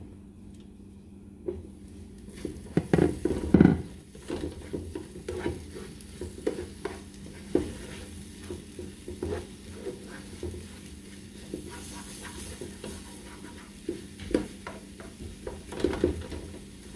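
Spatula stirring and scraping scrambled eggs with ham and tomato in a frying pan, with a light sizzle of the food cooking. A louder clatter about three seconds in as the pan's glass lid is lifted off and set down.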